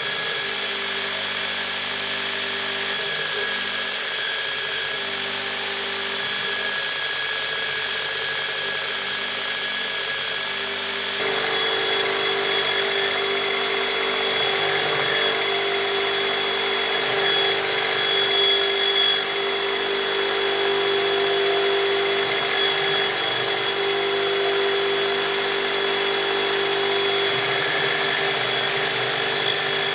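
Electric belt grinder running steadily, getting louder with a slightly changed pitch about eleven seconds in.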